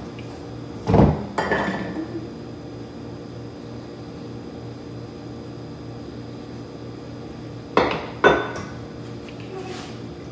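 Kitchen utensils knocking against a stainless steel mixing bowl of batter: a pair of clanks about a second in and another pair near the end, with short ringing after each.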